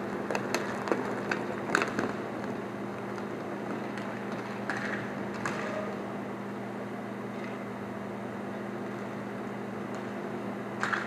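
Roller hockey play: scattered sharp clacks of sticks, puck and skates on the rink, bunched in the first two seconds and again near the end, over a steady low hum.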